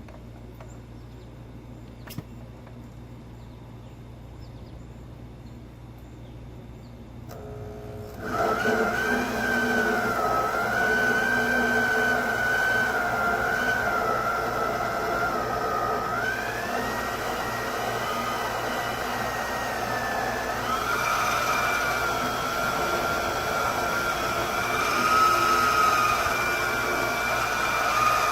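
Bauer portable handheld band saw starting about eight seconds in and running, cutting through two stacked 2x4s (3 inches of lumber) for a chine notch; its motor's whine dips and rises in pitch as the blade loads up in the wood. Before it starts there is only a faint low hum.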